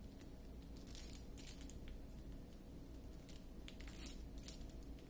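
Faint crinkling and light clicking of a small plastic bag of diamond-painting drills being handled and marked with a marker pen, in short scattered bursts.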